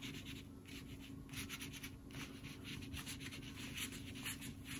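Foam sponge brush dabbing and rubbing wet paint onto paper: a run of faint, irregular scratchy strokes.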